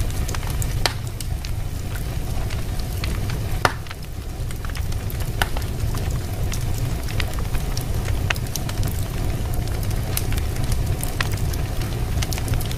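Fireplace fire crackling: scattered sharp pops and ticks over a steady low rumble, with one louder pop a few seconds in.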